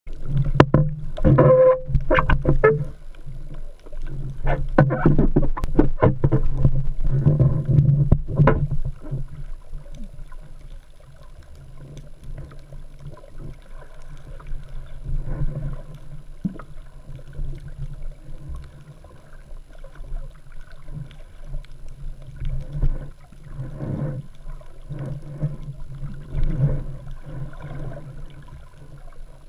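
Muffled water noise heard through an action camera's waterproof housing on a pole underwater, with a steady low hum. Sharp knocks and sloshing are loud and frequent for the first nine seconds or so, then it settles to quieter, scattered knocks and water movement.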